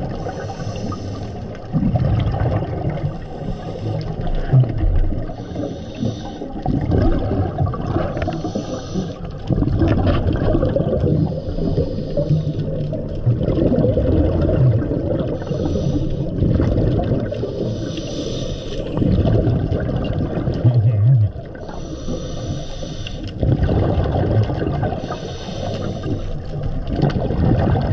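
Scuba diver breathing through a regulator underwater. A hiss on each inhale alternates every few seconds with the low bubbling rumble of exhaled air.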